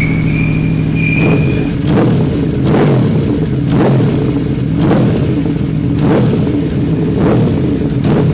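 Scooter engine running with the throttle blipped repeatedly, about once a second, each blip a short rise in revs.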